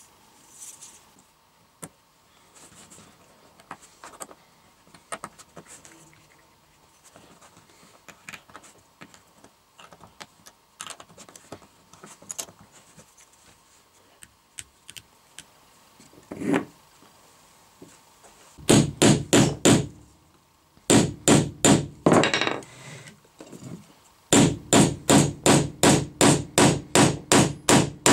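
Light clicks of small metal hardware being handled, then a hammer tapping rapidly in three runs, the last about four blows a second, on a fastener and wooden parts.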